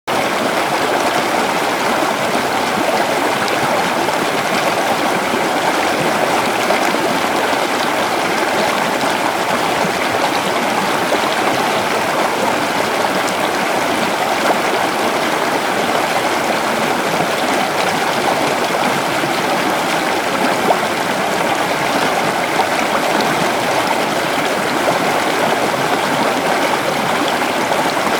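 River water flowing steadily, a continuous dense rushing and gurgling.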